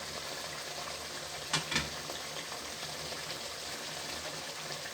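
Tilapia heads and tails sizzling steadily as they fry in oil and spice paste in a karahi, with two quick knocks about a second and a half in.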